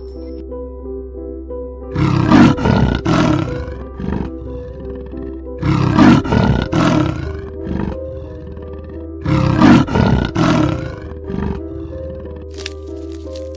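Leopard calling in three loud bouts about three and a half seconds apart, each made of a few rough strokes, over soft background music.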